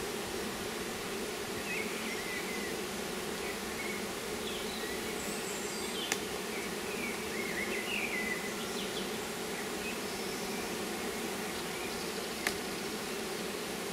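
Honeybee colony humming steadily at an open hive. Two sharp clicks, about six and twelve seconds in, come from a hive tool working the wooden frames.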